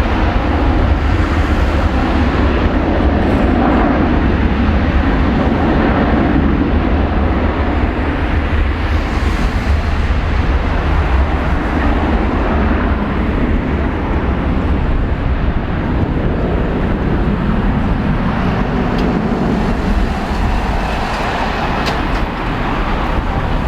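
Airbus A330-243's Rolls-Royce Trent 700 turbofans at takeoff power during the takeoff run: loud, steady jet noise with a deep low rumble.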